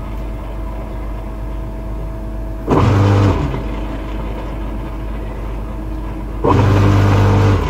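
Garden wood chipper running steadily with a low hum, getting louder twice: briefly about three seconds in and for about a second near the end, as material is fed into it.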